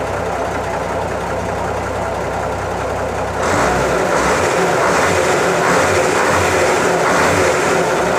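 Isuzu inline-six diesel engine running steadily; about three and a half seconds in it gets louder and stays so.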